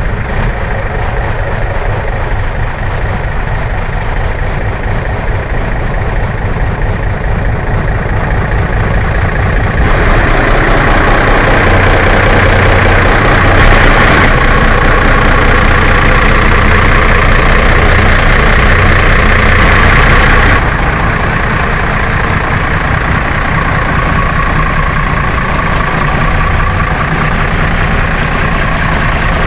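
Cummins 444 six-cylinder diesel idling steadily. From about a third of the way in, for roughly ten seconds, it is louder and brighter, with turbocharger hiss and whine, as it is heard close at the open engine bay.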